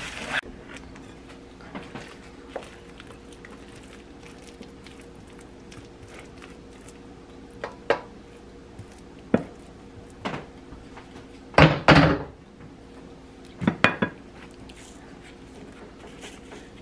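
A stir-fry sizzle in the wok cuts off abruptly at the start. Then scattered knocks and scrapes follow as fried rice is tipped from the steel wok onto a ceramic plate with a wooden spoon, with the loudest clatter about twelve seconds in, over a faint steady hum.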